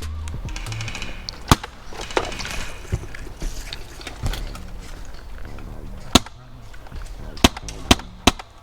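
Airsoft guns firing single shots: sharp, short snaps at irregular intervals, about eight in all, several of them close together near the end.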